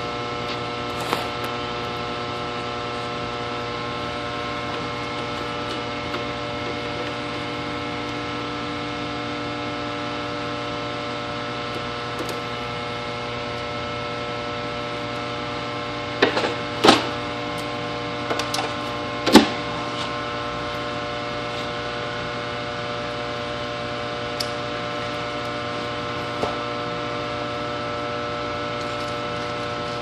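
Steady electrical hum with several pitches sounding together, with a few short knocks and clicks a little past the middle.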